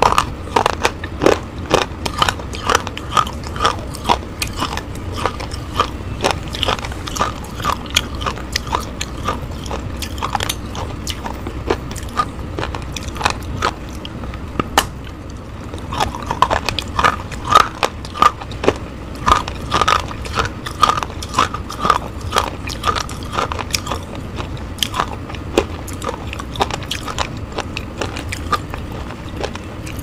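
Slate pencil being bitten and chewed right at the microphone: a dense run of sharp, brittle crunches and crackles, several a second, over a steady low hum.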